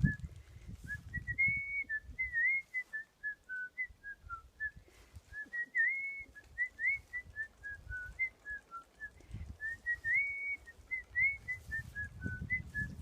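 A person whistling a melody: short, clear notes with slides up and down, in a phrase that repeats about every four and a half seconds. Uneven low rumbling noise runs underneath.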